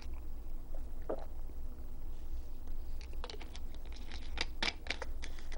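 Quiet drinking from a plastic water bottle, then a quick run of crackles and clicks from about three seconds in as the bottle is handled and its screw cap turned shut. A low steady hum lies underneath.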